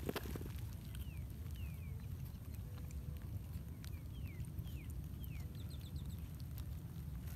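Small birds chirping: about a dozen thin, short falling chirps spaced irregularly, with a quick run of short chirps near the end. A steady low wind rumble on the microphone runs underneath.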